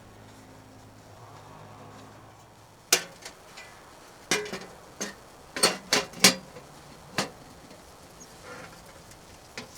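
About eight sharp, irregular knocks and clinks of hard objects being handled, starting about three seconds in and stopping about seven seconds in. Before them there is a faint low steady hum.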